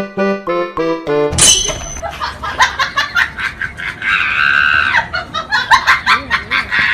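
A short plinking melody on a bell-like instrument, cut off about a second in by a busy, noisy scene with laughter. A long high-pitched squeal comes about four seconds in.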